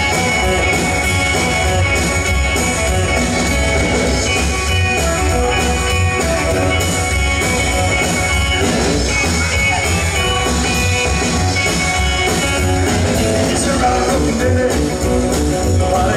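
Live rock and roll band playing: upright double bass, drum kit and electric guitar, with a steady beat.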